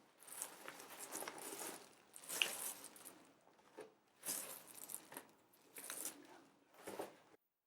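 Rustling and crinkling of packaging as the unboxed parts are handled, coming in several bursts with short pauses between them.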